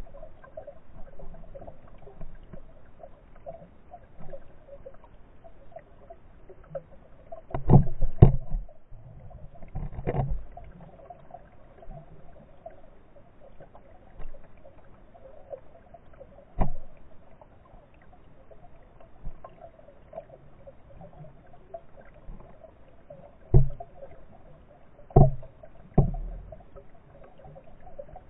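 Water recorded from a camera under the surface, muffled by the water, as hands dip and work a sheet of gauze bandage through the water above it. A faint steady hum runs under low sloshing, broken by about seven sharp knocks or splashes at uneven intervals, two close together about eight seconds in and three in the last five seconds.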